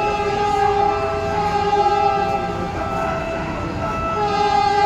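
A Philippine National Railways train's horn sounding two long blasts of a steady chord. The first lasts about two and a half seconds; the second starts about four seconds in.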